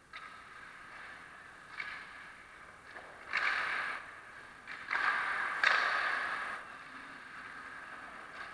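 Hockey skate blades scraping across the ice in a few long strokes, the two loudest starting about three and five seconds in.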